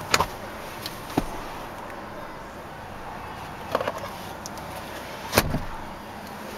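Clicks and knocks of a car seat's recline latch and seatback as the lever is pulled and the seatback is moved: a click at the start, a sharper knock about a second in, a short rattle near four seconds and the loudest knock a little after five seconds.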